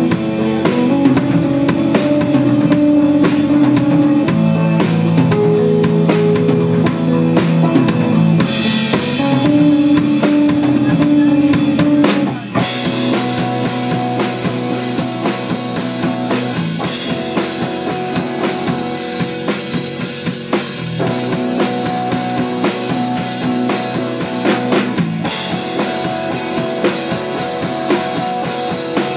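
Rock band playing: drum kit and electric guitar. About twelve seconds in the cymbals open up and the music gets brighter.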